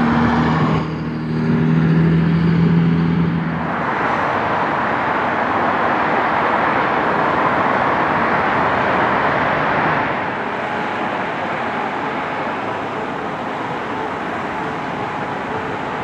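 Road traffic: a steady engine hum for the first few seconds, then a broad, steady rush of passing vehicles that eases slightly about ten seconds in.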